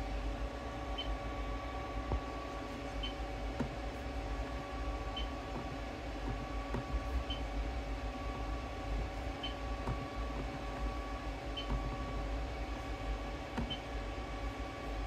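Steady electrical equipment hum made of several fixed tones over a low rumble. A faint, short high beep repeats about every two seconds, and a few soft clicks fall in between.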